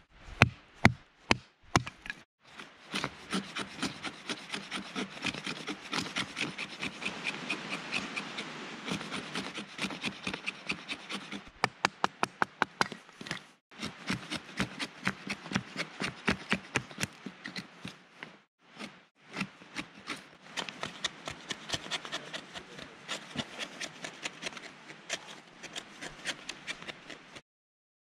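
Fixed-blade knife shaving curls off a dry wooden stick: quick, repeated scraping strokes of steel along wood, in long runs with a few short pauses, after a few sharp knocks in the first two seconds.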